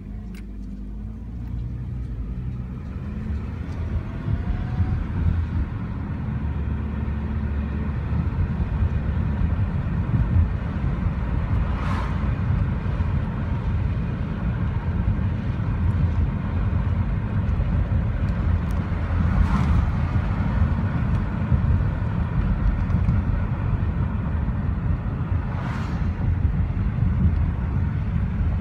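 Car driving, with low engine and road rumble that builds over the first several seconds as it gathers speed, then holds steady at cruising speed. Three brief rushes of hiss pass over it later on.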